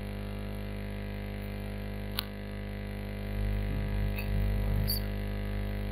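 Steady electrical mains hum with a single sharp click about two seconds in, and faint low rumbling in the second half.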